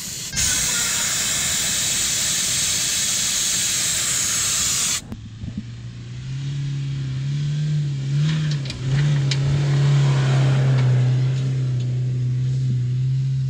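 A loud rushing hiss for about five seconds, then a sudden cut to a vehicle engine running with a steady low drone, which rises a little in pitch as it pulls away.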